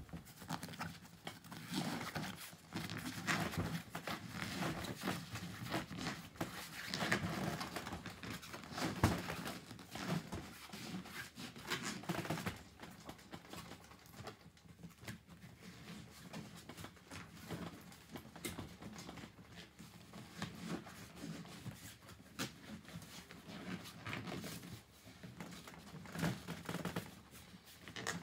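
Fabric kayak spray cover rustling and rubbing as it is pulled and pressed into place over the deck of a folding kayak, with irregular small clicks and taps from handling its fittings. Busiest for about the first twelve seconds, then quieter and sparser.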